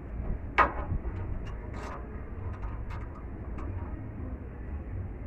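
A few short knocks and scrapes, the loudest about half a second in, over a steady low rumble.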